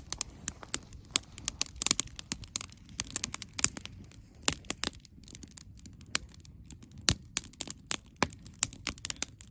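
Campfire crackling: irregular sharp pops and snaps from burning wood, several a second, over a low steady hiss.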